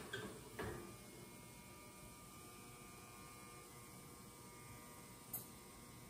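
Faint steady electrical hum, with a few light knocks in the first second and a single short click about five seconds in.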